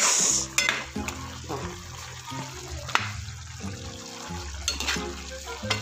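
A ladle stirring through chicken menudo stew in a pot, the sauce sloshing, with a short hiss at the start and a couple of sharp clicks of the ladle against the pot. Background music plays underneath.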